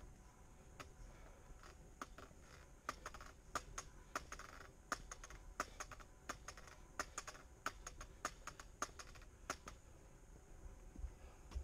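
Footsteps going down a stairway and onto a concrete platform: faint, irregular clicks and taps of shoes on the steps, several a second, stopping near the end.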